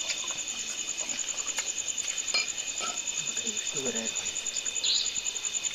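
Crickets chirping in a fast, steady pulsing trill, with a few faint clinks of steel dishes.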